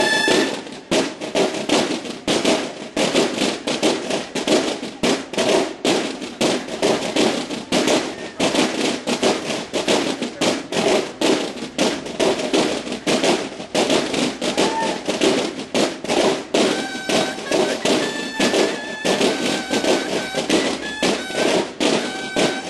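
Banda de guerra drum line playing a fast, dense cadence on field drums. Bugles sound held notes briefly at the start and come in over the drumming about sixteen seconds in.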